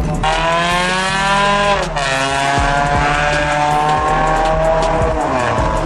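A modified car pulling away under power with its tyres squealing. The pitched screech holds, breaks off briefly about two seconds in, then carries on and slowly falls in pitch.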